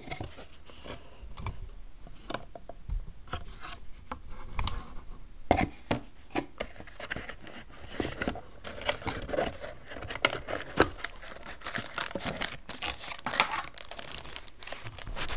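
A cardboard camera box being opened and its packaging handled: a run of irregular scrapes, taps and rustles of cardboard and plastic bags.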